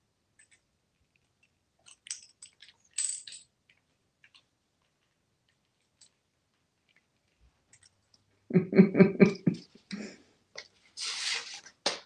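Coins clinking and clattering on a bathroom vanity countertop as an African grey parrot handles them: scattered light clicks at first, then a louder quick rattle of about five strokes about eight and a half seconds in.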